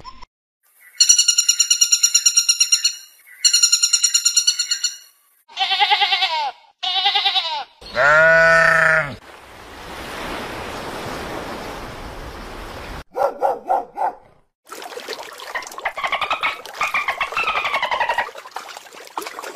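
A run of different animal calls, one after another with short gaps: high pulsed cries, then lower bleat-like calls. A few seconds of plain hiss come midway, followed by more short calls and a warbling, gliding call near the end.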